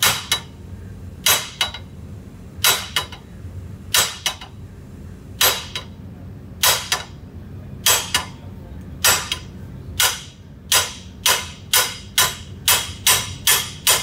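Brass soft mallet striking the end of a Mud Buddy mud motor's lower-unit shaft clamped in a vise, driving the shaft out of the housing. Sharp, ringing metallic knocks, mostly in pairs about every second and a half, quickening to about two blows a second in the last few seconds.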